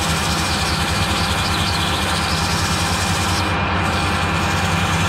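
Metal lathe running steadily with a strip of emery cloth held against a painted metal tube spinning in its chuck, sanding the paint off; a constant motor hum under an even abrasive hiss, which drops away briefly about three and a half seconds in.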